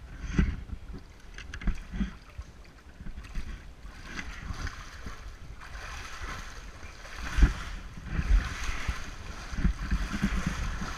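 Water splashing and sloshing close to the microphone as a swimmer moves through a flooded canyon pothole. Irregular low thumps run through it, the loudest about seven and a half seconds in.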